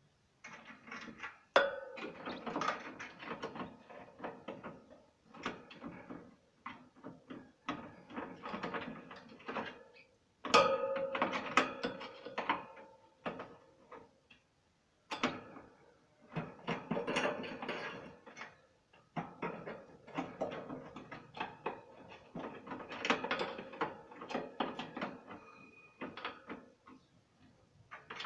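Canaries splashing and fluttering their wings in a bird bath: rapid clicky splashes in bouts of a few seconds, broken by short pauses.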